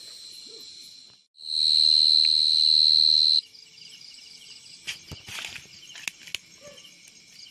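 Field crickets calling in a steady trill; one very close sings loudly for about two seconds and then stops abruptly. Afterwards the quieter chirping continues, with a few sharp knocks and rustles of a stick poking into soft soil.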